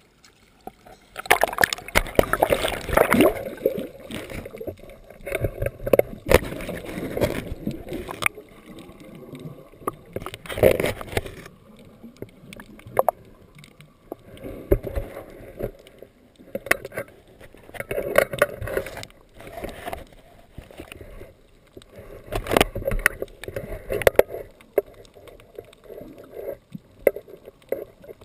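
Sea water splashing and gurgling in irregular bursts a few seconds apart, the sound of a swimmer stroking through calm water close to the microphone.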